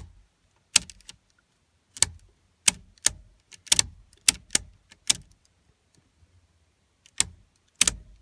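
Sharp clicks and taps at irregular spacing, about a dozen in all, as the small parts of a disassembled steering column's turn-signal cancelling mechanism are handled. There is a pause of about two seconds before the last few clicks.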